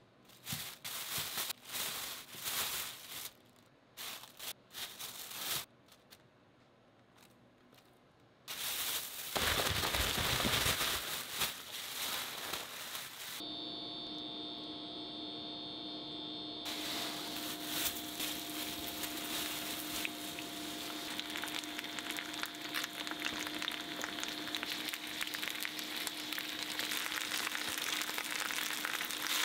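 Chicken breast and eggplant pieces shallow-frying in plenty of oil, sizzling and crackling steadily through the second half, with a steady electric hum and high whine from the induction hob underneath. Before that come crinkling rustles and a few seconds of loud shaking, a plastic bag being worked to coat the pieces in potato starch.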